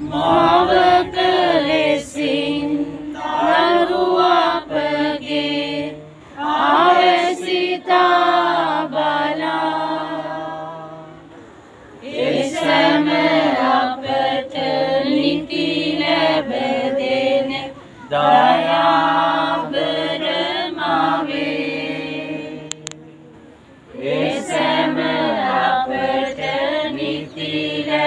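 A gathered crowd singing a hymn together in unison, in long sustained phrases with short breaks between them.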